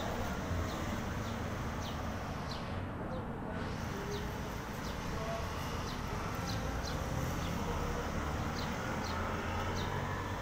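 Steady background rumble and low hum, with short high chirps of small birds repeating every second or so.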